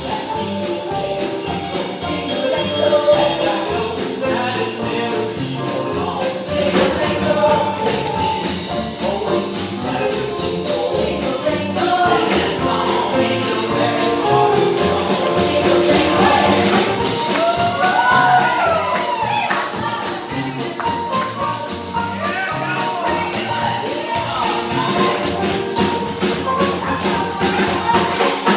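Stage-show music with singing over a steady rhythmic beat.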